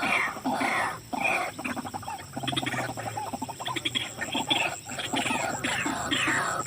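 White-breasted waterhens calling: a fast, repeated run of harsh calls over a rhythmic pulsing undertone. The calls thin out and break into stuttering clicks for a couple of seconds in the middle, then pick up again near the end.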